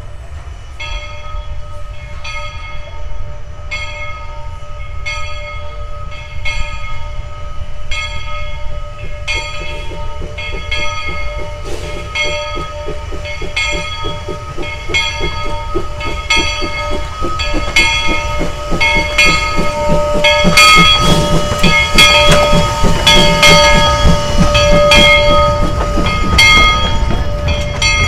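Two-foot narrow-gauge steam locomotive approaching and passing with its train. Its exhaust beats come about once a second at first, then grow louder and closer together, loudest about twenty seconds in, with a steady tone held underneath.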